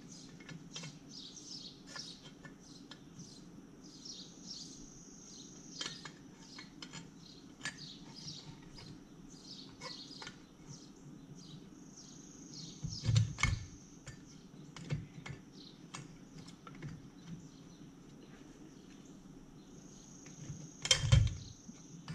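Small birds chirping over and over in the background, with faint clicks of carburettor parts being handled and fitted by hand. Two heavier knocks come about halfway through and near the end.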